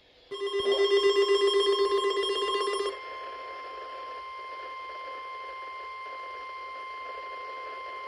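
A weather alert radio's alarm beeps in rapid pulses for about three seconds. It gives way to the steady 1050 Hz NOAA Weather Radio warning alarm tone, which marks an incoming flood warning.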